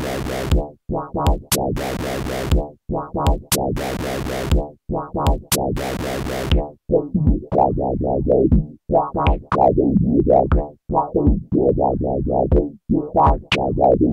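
Electronic music played on a Teenage Engineering Pocket Operator Sub bass synthesizer: short, plucked synth-bass notes in a bouncing rhythm with sharp drum-machine clicks. The beat stops and starts several times, and a few notes bend in pitch near the middle.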